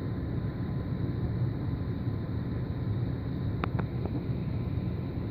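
Steady low hum and hiss of a fish room's running equipment, with a couple of faint clicks about three and a half seconds in.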